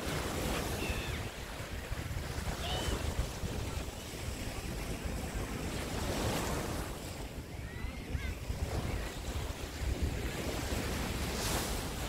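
Small waves breaking and washing up on a sandy beach, swelling every few seconds, with wind buffeting the microphone.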